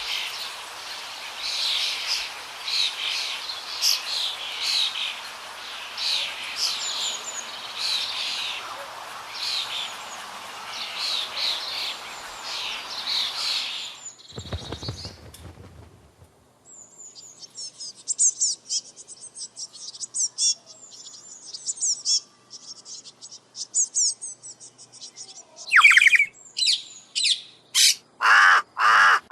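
Wild birds chirping and singing in a run of separate clips: many chirps over a steady hiss, then a fast high twittering song, then several loud sweeping calls near the end. A brief low sound comes about halfway through.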